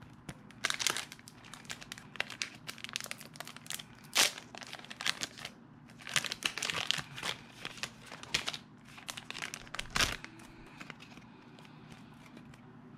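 Foil wrapper of a Pokémon Sun and Moon booster pack crinkling and tearing as it is opened by hand, a run of sharp crackles. The loudest come about four seconds in and at about ten seconds, and it goes quieter after that.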